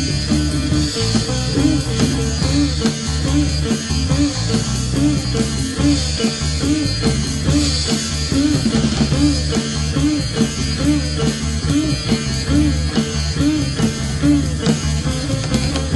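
Background music: a plucked string lead whose notes repeatedly bend up and down in pitch, over a steady bass and drums.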